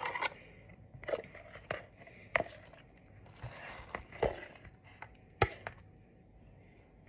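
Quiet kitchen handling while a sandwich is made: a few scattered light taps and clicks of food, a bowl and bread on a wooden board, with a brief soft rustle about three and a half seconds in.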